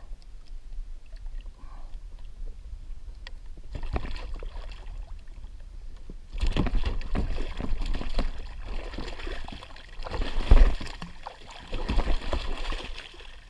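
Small shark thrashing at the surface beside a kayak, splashing and slapping the water in bursts that start about six seconds in. A heavy thump about ten seconds in is the loudest sound.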